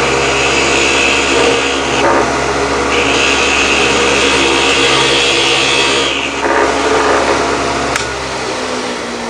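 Small lathe motor running steadily with the pen blank spinning, as a 60-degree centering bit cuts a centering hole into the end of the wooden blank. The cutting hiss comes in two passes, one over the first two seconds and one from about three to six seconds in. The motor stops near the end.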